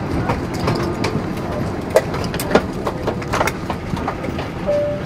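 Airliner cabin noise after arrival: a steady hum with scattered clicks and knocks, and a brief tone near the end.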